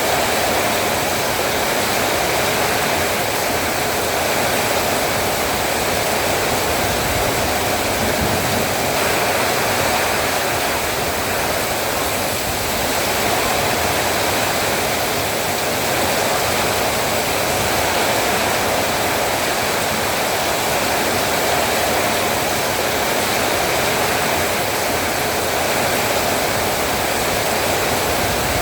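Heavy rain pouring down steadily, a dense even hiss with no separate drops or other events.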